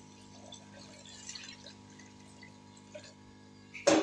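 Water being poured into a cooking pan of chicken and tinda, heard as faint splashing over a steady low hum. A single loud, sharp knock comes near the end.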